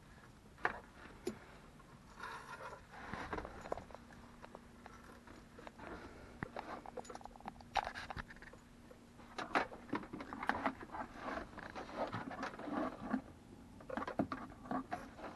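Handling noise as CB radio wiring is worked by hand: cables rustling and scraping, with scattered small clicks and knocks. A faint steady hum runs through the middle few seconds.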